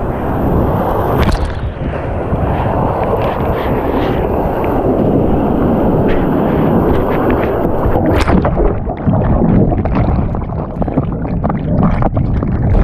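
Whitewater rapids rushing and splashing over a kayak and paddle, right at the camera, with wind buffeting the microphone. About eight seconds in the sound suddenly turns muffled and duller.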